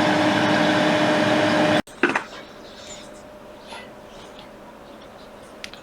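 Heat gun's blower running steadily with a hum, switched off abruptly about two seconds in, followed by a few faint small clicks.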